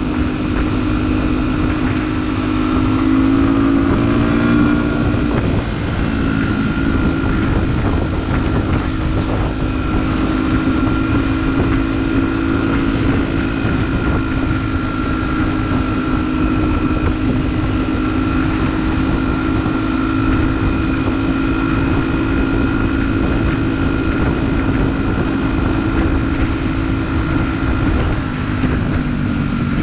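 Beta RR 125 LC enduro motorcycle's single-cylinder engine running while riding, the revs rising a few seconds in, then holding steady at cruising speed, with wind noise on the microphone.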